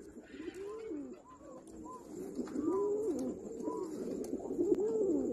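Domestic pigeons cooing, a string of overlapping coos that rise and fall in pitch, getting louder about two and a half seconds in.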